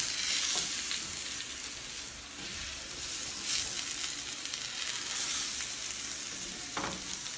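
Potatoes frying in oil in a stainless steel pan, sizzling steadily as they are stirred with a silicone spatula. A brief knock near the end.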